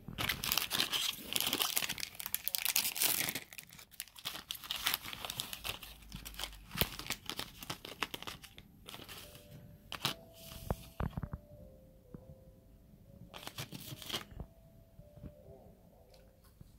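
Snack wrapper being torn open and crinkled, a dense crackling for the first three or four seconds, then scattered crinkles and clicks as the pieces in their plastic tray are handled, with another short burst of crinkling near the end.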